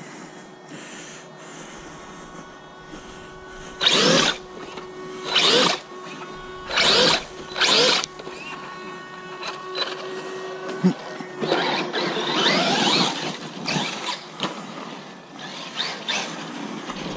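Traxxas Maxx RC truck's brushless electric motor revving in short throttle bursts, four in quick succession, then a longer rougher run with the tyres spinning on loose dirt.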